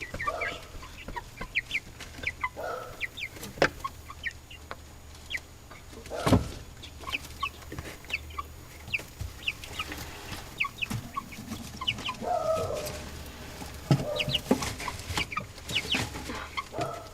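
Young chickens, about 7 to 9 weeks old, clucking and cheeping in a steady stream of short, high calls. A single loud knock comes about six seconds in.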